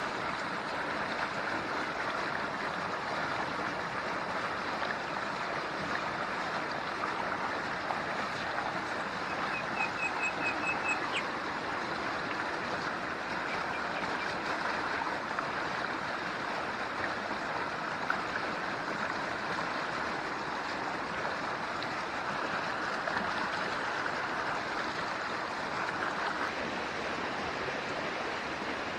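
Forest stream flowing steadily, an even rush of water. A brief run of quick high chirps is heard about ten seconds in.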